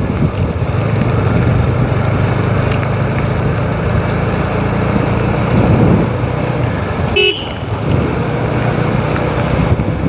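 TVS Apache motorcycle running on the road, with steady engine, wind and traffic noise. A brief vehicle horn toot sounds about seven seconds in.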